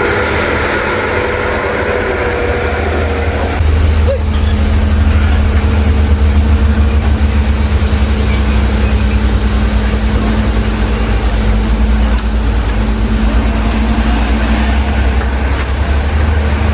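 Heavy diesel machinery engine running steadily at a mine site. It gets louder about three and a half seconds in and holds there.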